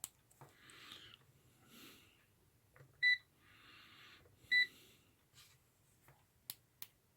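Digital multimeter's buzzer giving two short, high beeps about a second and a half apart. Soft breathing noise and a few light clicks come around them.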